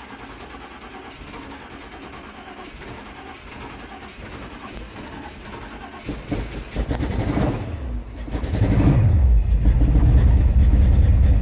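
Chevy Nova hot rod's V8 engine being cranked on the starter, sputtering and starting to catch about six seconds in, then firing up and running loud and steady from about eight and a half seconds: a cold start after sitting all winter.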